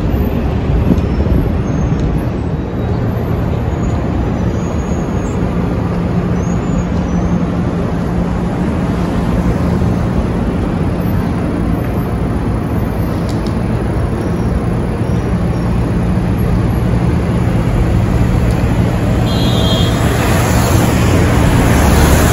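Busy city street traffic: a steady low engine hum from vehicles running close by, with a hiss that grows louder near the end.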